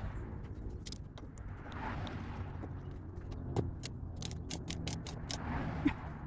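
A ratchet wrench clicking quickly, about seven clicks a second for over a second, as the steering wheel nut is run down, among scattered clicks and handling noise.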